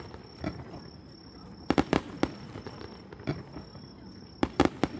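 Fireworks display shells bursting: quick clusters of sharp bangs about two seconds in and again near the end, with single reports between them. A steady high-pitched tone runs underneath.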